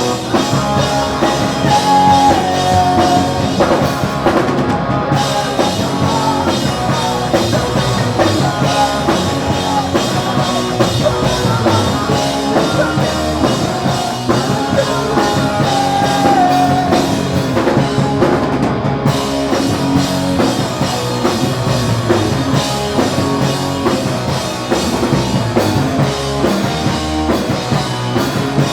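A punk rock band playing live: distorted electric guitars, bass and a full drum kit, with a melodic guitar line standing out above the rhythm at times.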